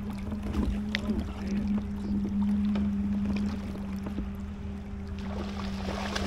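A small boat motor hums steadily at one even pitch on a fishing kayak. Faint water sounds and a few light ticks run underneath.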